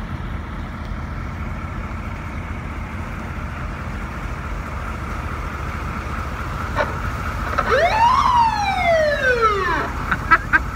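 Ford C-series E-One fire truck's diesel engine idling steadily. About seven and a half seconds in, its siren sounds once, rising quickly in pitch and then falling away over about two seconds, followed by a few sharp clicks.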